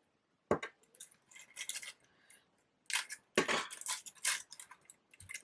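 Paper flowers being handled and gathered into a bunch: irregular rustling of paper petals with a few light clicks from the stems.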